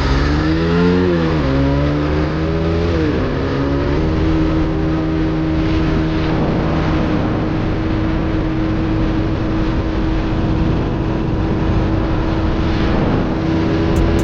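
Suzuki Satria F150 motorcycle's single-cylinder four-stroke engine accelerating through the gears, pitch climbing and dropping at each of several quick upshifts in the first four seconds. It then holds a steady pitch while cruising, under a rush of wind noise.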